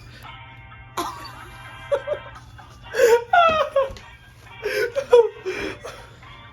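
Background music plays, with a sharp knock about a second in and a voice making short wordless sounds with sliding pitch around three and five seconds in.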